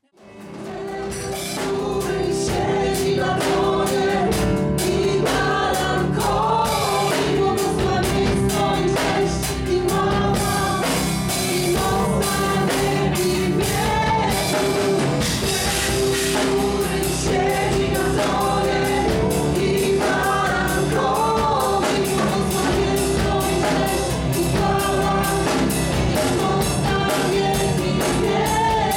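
Live worship band playing a song: women singing to keyboard, electric and acoustic guitars and a drum kit, with a steady beat. The music fades in over about the first second.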